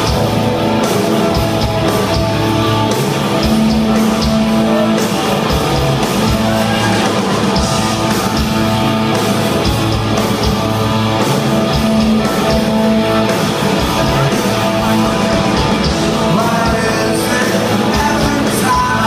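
Rock band playing live: electric guitars, bass guitar and drums, with a lead singer's voice.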